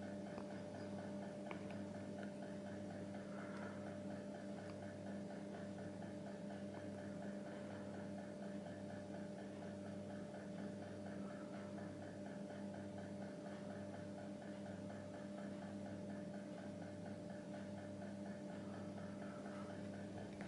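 Steady electrical mains-type hum, with a low tone that pulses on and off about once a second.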